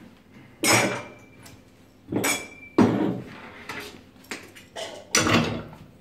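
Metallic knocks and clinks from an espresso machine portafilter and its steel basket being handled: about five separate strikes, two of them with a short ringing tone.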